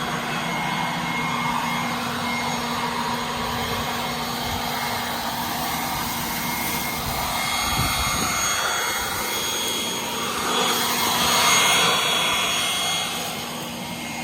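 Leaf blower running steadily with a constant whine. It swells louder a little past the middle, then eases off near the end.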